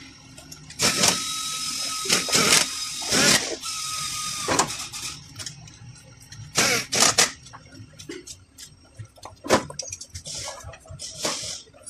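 Workshop sounds: short bursts of hissing, the first two with a steady whistle running through them, and a few sharp metallic knocks and clinks.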